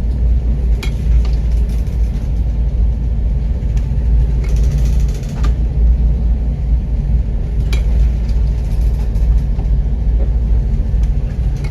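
A loud, steady low rumble with a few short sharp knocks.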